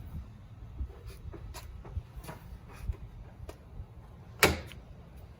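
A scattering of light taps and clicks, then one sharp, louder knock about four and a half seconds in.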